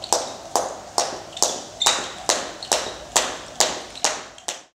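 Skipping rope slapping the floor in a steady rhythm, a little over two strikes a second, each with a short echo. It cuts off suddenly near the end.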